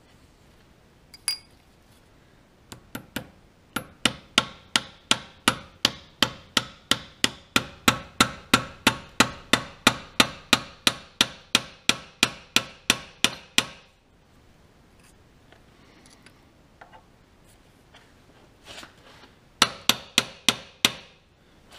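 Hammer driving a steel roll pin into the knee power feed's shaft coupling on a milling machine, struck in an even run of about three light blows a second for some ten seconds. After a pause there is a short quick burst of about five more blows near the end.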